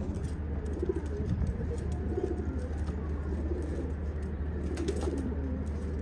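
Domestic pigeons cooing over and over, with a steady low rumble underneath.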